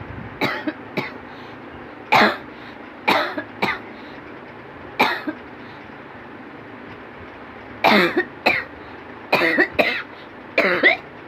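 A person coughing on purpose for a cough challenge: about a dozen short, hard coughs, some single and some in quick pairs, with gaps of a second or two between them.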